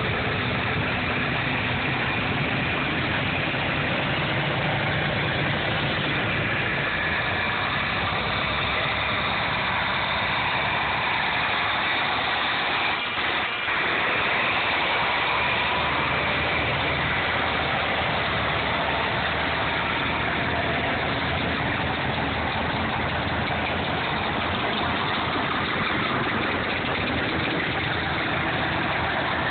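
Engines of a line of antique farm tractors running steadily as they drive past one after another.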